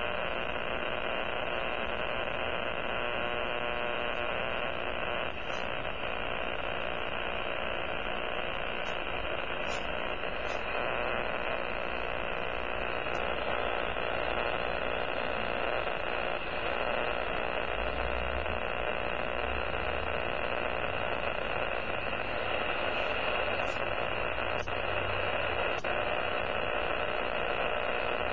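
Power line interference heard on an amateur radio receiver: a steady, unbroken noise filling the receiver's audio.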